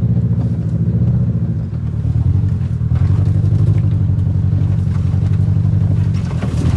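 Car engine running steadily under light throttle as the car crawls along a rough off-road trail, heard from inside the cabin, with a brief easing off a little under two seconds in and a few faint knocks and rattles.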